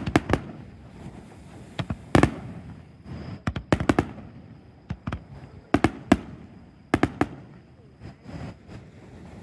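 Aerial fireworks shells bursting: about a dozen sharp bangs at irregular intervals, several coming in quick pairs, the louder ones trailing off in a low rumble.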